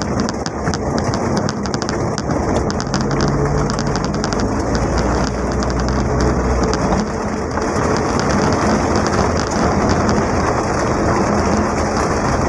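Rain falling on the roof and windows of a Mitsubishi L300 van, heard from inside the cabin, over a steady low drone of the running vehicle.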